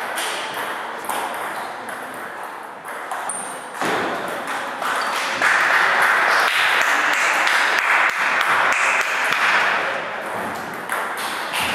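Table tennis balls clicking off rubber bats and bouncing on the table during rallies, sharp pings at irregular intervals. A dense hiss-like noise rises over them from about five and a half seconds in to about ten seconds, the loudest part.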